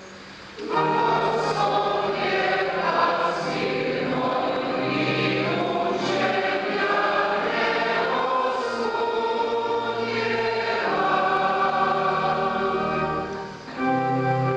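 Church choir singing the sung refrain of the responsorial psalm in held chords. It begins about a second in, breaks off briefly near the end, then goes on.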